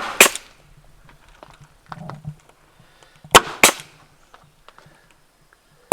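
Crown stapler driving staples through hardware cloth: sharp double snaps, one pair at the start and another about three and a half seconds in.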